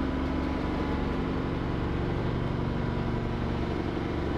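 A boat engine running steadily at one constant pitch, an even mechanical hum heard from inside the cabin.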